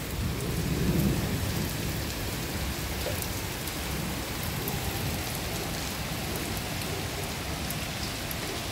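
Steady rain falling on a paved street and gates, a downpour that is just beginning to ease.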